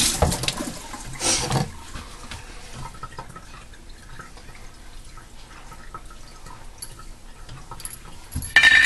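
Kitchen sink tap running as hands are rinsed, shut off after about a second and a half. Faint drips and small clicks follow, then a brief loud burst of noise near the end.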